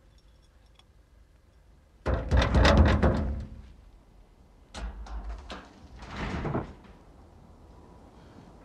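Clattering and knocking. A loud burst of rapid rattling knocks comes about two seconds in, then two shorter, softer bouts follow.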